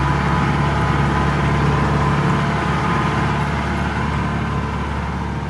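Mahindra jeep engine running steadily while driving slowly along a dirt track, heard from inside the cab, growing slightly quieter toward the end.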